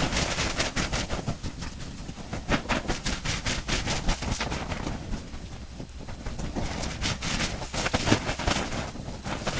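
Water from a garden hose sprayed onto a smouldering pile of wood biochar, hissing and crackling where it hits the hot char, in uneven bursts. This is quenching the char to stop it burning down to ash.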